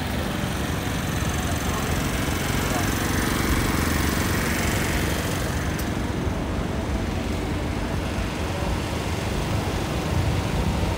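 Steady city street noise: a continuous hum of traffic and engines with a low rumble.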